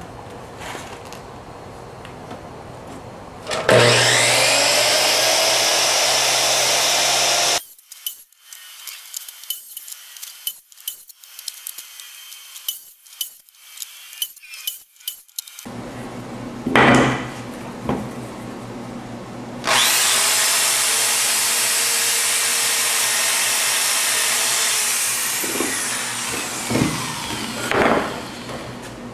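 A power saw runs twice, each time for about four to five seconds; the second run ends with the motor winding down. Between the two runs comes a quick series of sharp clicks and taps, and a few loud knocks follow near the end.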